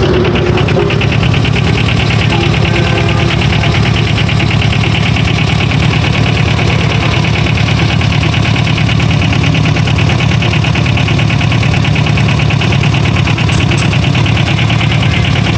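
Diesel engine of an Iseki Frontier 110 mini combine harvester running steadily, heard close up at the open engine bay, with a fast, even clatter.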